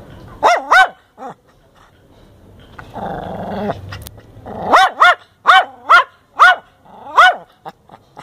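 Angry Chihuahua barking in sharp, high yaps: a pair of barks, a low growl about three seconds in, then a quick run of six more barks.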